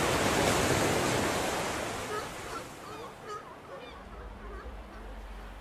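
Rush of splashing water as humpback whales surge up through the surface in a feeding lunge, loud for the first two seconds and then fading. It is followed by a string of short, shrill gull calls.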